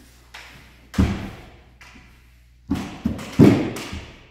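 Lightsaber sparring: the blades knock and thud against each other and the fencers' gear in a large echoing hall. There is one sharp hit about a second in, then a quick flurry of about four near the end.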